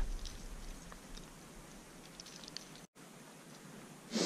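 Quiet outdoor stillness with faint ticks and rustles of movement through dry grass, and one short louder rustle near the end.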